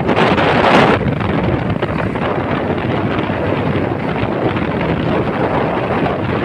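Wind buffeting the microphone, a steady loud rushing that is strongest through the first second.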